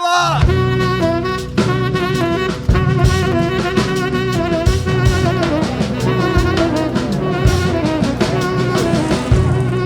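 Upbeat jazzy music with brass, saxophone and a steady drum-kit beat.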